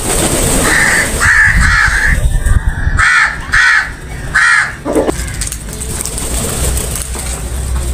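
House crows cawing: a run of about six short caws spread over the first five seconds.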